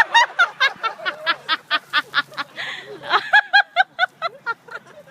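People laughing hard: rapid, high-pitched bursts of laughter with a breathy gasp about halfway through.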